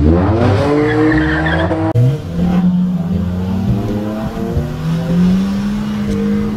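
Turbocharged VW Jetta TSI launching off a drag-strip line on a wet track, revs climbing steeply as the tyres spin. From about two seconds in it is heard from inside the cabin, the engine pulling hard, its pitch dropping briefly near five seconds in at an upshift and climbing again; the wheelspin is the loss of traction on the wet surface that the driver says lasted up to 100 km/h.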